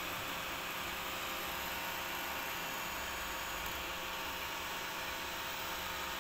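Steady whir and hiss of a desktop 3D printer's cooling fans, with a faint constant hum underneath.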